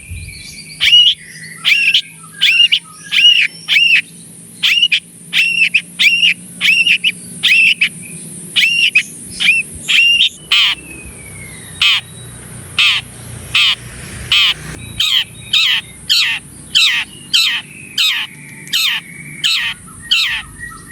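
Long-tailed shrike (cendet) singing a long run of repeated harsh, arched notes, about two a second, switching about halfway through to sharper, shorter notes.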